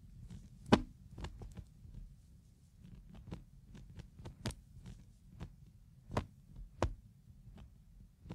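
A kerosene lamp's wick sputtering as its flame dies down: irregular sharp crackles, about two a second and some louder than others, over a steady low hum.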